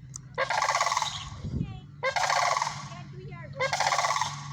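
Sandhill cranes calling: three loud, rolling, rattling calls, each under a second long and about a second and a half apart.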